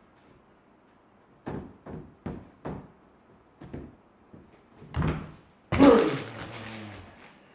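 A run of short wooden knocks, a wooden block rocking and clacking on a wooden stage floor under a person balancing on it. About five to six seconds in comes a heavy thud as the person drops onto a foil-wrapped cylinder on the floor; it is the loudest sound, and a ringing tail follows that lasts over a second.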